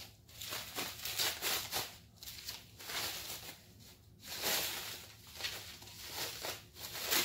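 Plastic bubble-wrap packaging crinkling and rustling in irregular bursts as it is handled and unwrapped.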